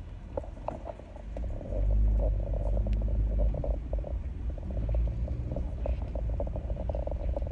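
Low rumble inside a car, swelling about two seconds in and again around five seconds, over a steady hum with light ticks.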